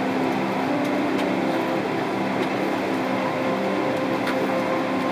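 Steady rushing hum inside a Boeing 777-300ER airliner cabin on the ground: ventilation airflow with a low drone of several held tones, and a few faint clicks.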